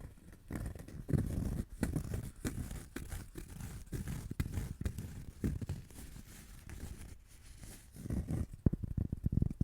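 Close-miked ASMR trigger sounds: irregular taps, clicks and rustling handling noises on an object. They ease off about two-thirds of the way through, then come back as a quicker run of clicks near the end.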